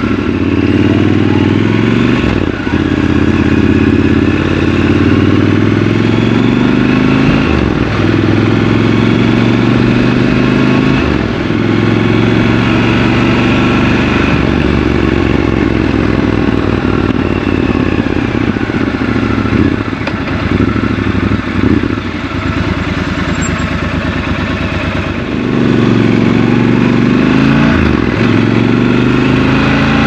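Triumph Scrambler 1200 XC's parallel-twin engine pulling away and accelerating through the gears: the revs climb and drop back several times as it shifts up, hold steadier in the middle, then climb again near the end.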